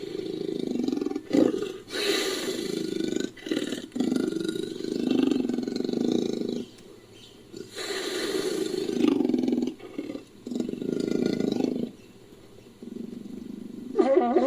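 Designed creature sound effect built from leopard vocalisations: several long roars a few seconds each with short breaks between them, and a shorter, sharper call near the end.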